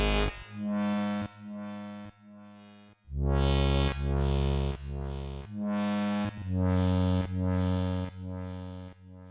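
Glitchy electronic music: blocks of synthesizer chords over heavy bass, each cut off abruptly, with a brief near-gap about three seconds in.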